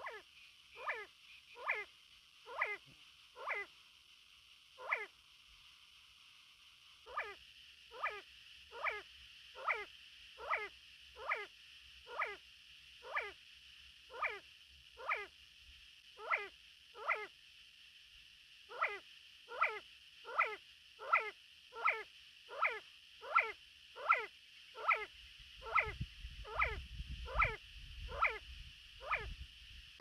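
Male see-see partridge calling: a run of short whistled notes, each sliding sharply downward, repeated about once a second, with a couple of brief pauses between runs.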